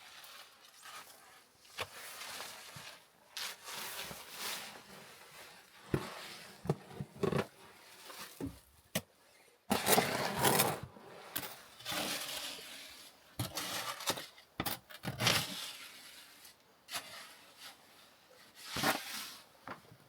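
Shovel or trowel working wet concrete into a culvert pier form: irregular scrapes and short knocks, busiest and loudest about ten seconds in.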